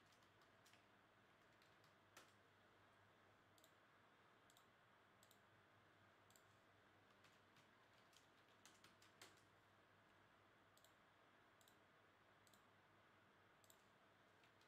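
Faint, irregular clicking of a computer keyboard and mouse as names are typed into a spreadsheet, over a low steady hiss.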